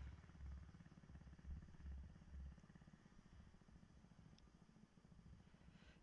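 Faint, distant putter of the small single-cylinder 212 cc cultivator engine on a mini three-wheeled moped as it rides away, fading after the first couple of seconds.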